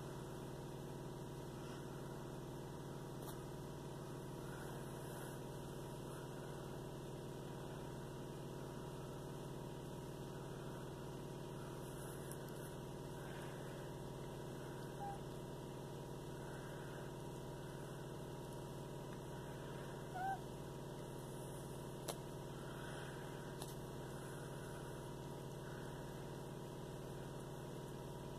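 Cat purring in a steady low rumble while one cat licks another's fur, with soft licking sounds every second or two. A brief faint high squeak comes about twenty seconds in.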